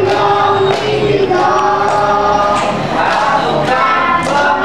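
A group of young children singing together in unison, with long held notes.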